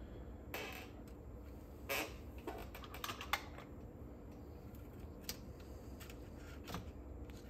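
Irregular small clicks and taps, a few seconds apart with a quick cluster about three seconds in, from hands and small tools handling the parts of a cassette deck's tape transport.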